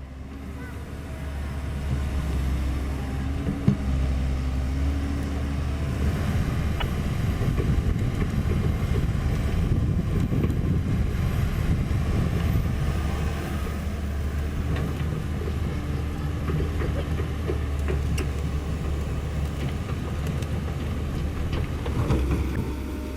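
Komatsu PC130F hydraulic excavator's diesel engine running steadily. It fades in over the first couple of seconds, with a brief sharp knock about four seconds in.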